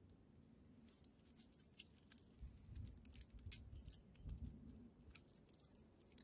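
Faint scattered clicks and light crinkling as an Esbit solid-fuel tablet is unwrapped from its foil and lit.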